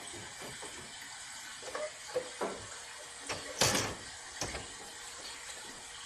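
Light knocks and a few short hissing bursts from the cleaning of a wall-mounted air conditioner with its front panel held open, over a steady faint hiss. The longest and loudest burst comes about three and a half seconds in.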